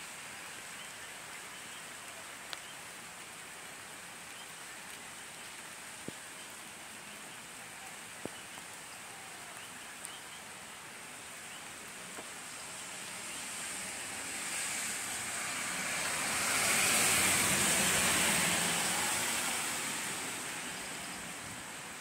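Rain falling with a steady hiss and a few sharp drip ticks, swelling louder for several seconds in the second half before easing off.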